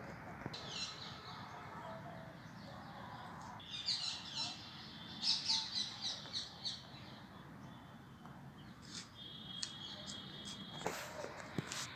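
Small birds chirping outdoors in quick runs of short high notes, busiest about four to seven seconds in, with a thin steady high note later on. A couple of sharp clicks near the end.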